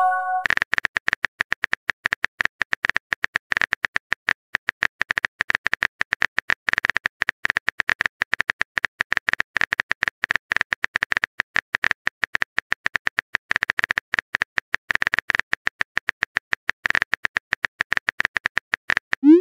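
Simulated phone keyboard tapping from a texting-story app: a rapid, even run of short clicks as a message is typed out letter by letter.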